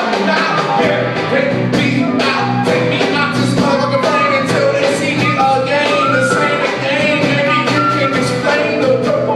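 Live band playing drums, bass, guitar and keys, with a flute playing a melody of short notes over the beat.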